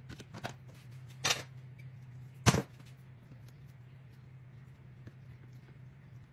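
Dishes being handled on a kitchen counter: a few light clicks and two knocks, the louder one about two and a half seconds in, over a steady low hum.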